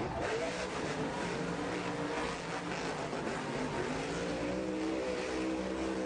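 Monster truck supercharged V8 engines revving, their pitch rising and falling slowly.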